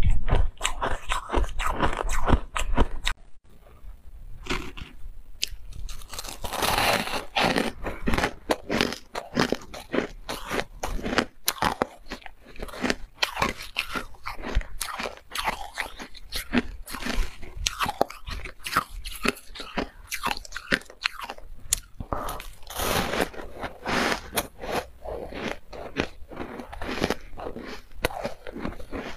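A person biting and chewing refrozen white ice: a fast, continuous run of sharp, brittle crunches, loudest in the first three seconds.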